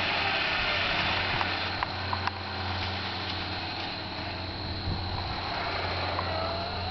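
The John Deere racing tractor's 16-horsepower twin-cylinder engine heard from a distance as a steady engine hum, easing a little after about two seconds.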